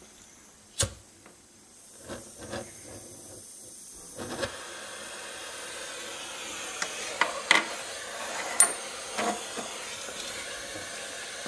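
Small pen blow torch being lit: a sharp click about a second in and a few more clicks, then from about four seconds in a steady hiss of gas and flame, with occasional clicks over it.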